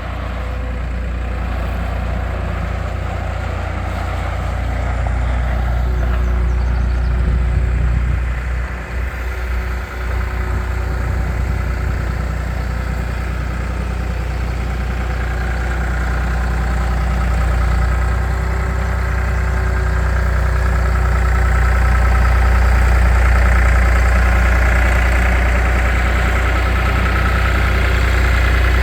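Diesel engine of a 2002 New Holland LS180 skid steer loader running steadily. There is a brief dip about nine seconds in, and the engine grows louder through the second half.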